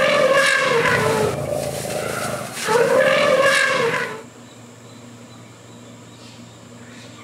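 Asian elephant trumpeting twice: two long, loud calls that rise and fall in pitch, the second cutting off about four seconds in. A faint steady background follows.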